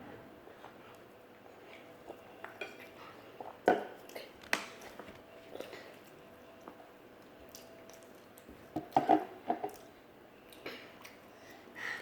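Scattered clicks and clinks of utensils against a bowl, with some chewing, during a meal of spicy noodles. The knocks come singly and irregularly, with a small cluster near the end.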